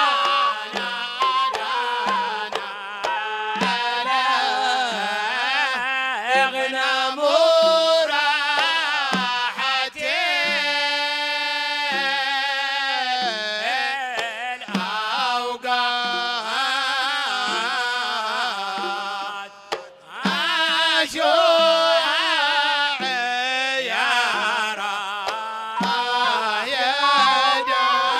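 A male singer performing a Hadhrami religious song (inshad) in Arabic, holding long, ornamented notes that bend up and down, accompanied by a large double-headed drum.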